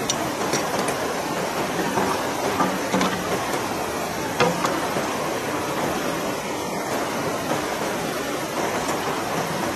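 Fast-flowing river rushing over rocks, a steady noise, with a few light knocks as green bamboo poles are handled against each other and the rock.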